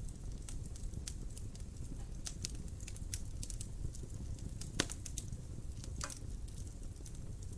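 Wood fire crackling in a fireplace: scattered small snaps and pops over the low, steady rumble of the flames, with one louder pop a little past the middle.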